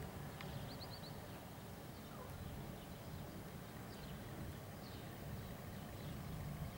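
Small birds chirping in short, scattered calls over a steady low rumble, with a quick run of four chirps about a second in.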